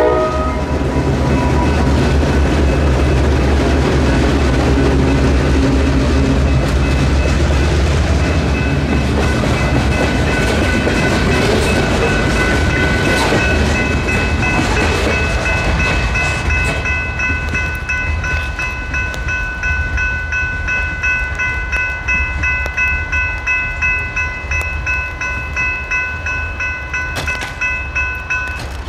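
Freight train passing a grade crossing. The horn of the lead locomotive cuts off just as it begins, and the low diesel running of the two EMD SD38-series locomotives gives way to hopper cars rolling and clacking over the rails. Under it all a General Signals Type 3 electronic crossing bell rings steadily, and it stops shortly before the end as the gates rise.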